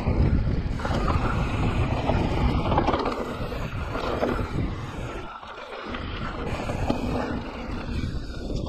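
Mountain bike riding fast down a dirt singletrack: tyres rolling over dirt and the bike rattling, under steady wind rushing over the action camera's microphone.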